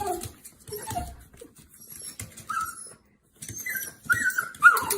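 A dog whimpering in a series of short, high cries that bend in pitch, with a brief pause about three seconds in.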